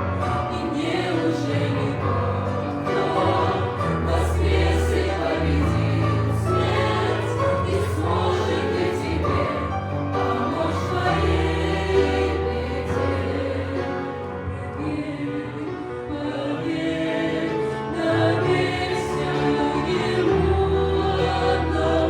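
Church choir singing a Christian hymn in Russian with instrumental accompaniment: sustained choral chords over long held bass notes.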